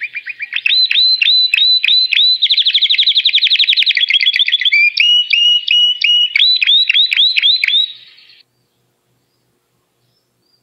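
Recorded bird song played from a phone: a fast run of high, repeated chirps and trills, several notes a second, that stops about eight seconds in. It is given as an example of a high-pitched sound.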